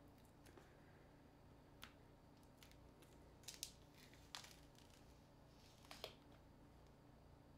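Faint, scattered clicks and snaps from an HTC U Ultra smartphone being handled and pried at by hand during disassembly, about five in all, with a sharp pair about halfway through, over a low room hum.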